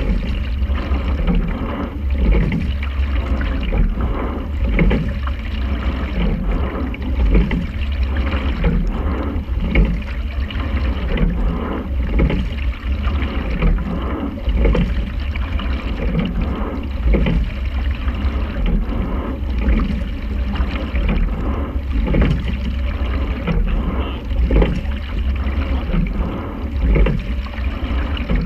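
Sculling quad being rowed at a steady racing rate. A rhythmic stroke comes about every two and a half seconds, over water rushing past the hull and a steady low rumble.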